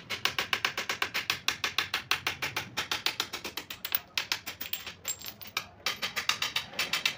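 A hand-held glass tool chipping and tapping at the edge of a glass sheet: fast, sharp glassy clicks, about nine a second, broken by two short pauses near the middle.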